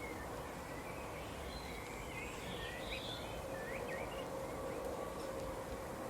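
Small birds chirping, a cluster of short calls and quick up-and-down notes in the middle, over a steady outdoor background hiss and rumble.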